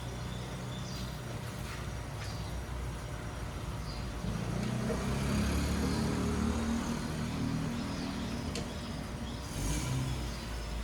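An engine running with a low rumble that grows louder about four seconds in and eases off a few seconds later.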